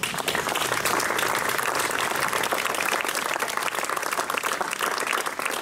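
Audience applauding, many hands clapping at once; the applause starts suddenly and holds steady.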